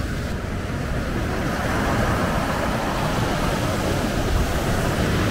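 Ocean surf breaking on a wide beach, a steady wash of waves that swells about two seconds in, with wind rumbling on the microphone.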